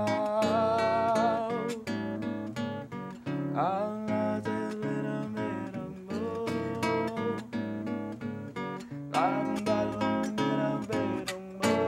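Acoustic guitar strumming the accompaniment of a Brazilian popular song, with a sung note held with vibrato that ends about a second and a half in.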